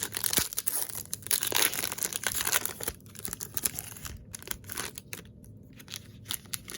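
A 2018 Topps Update baseball card pack being torn open, its foil wrapper crinkling for about three seconds. After that come sparser light ticks and rustles as the cards are handled.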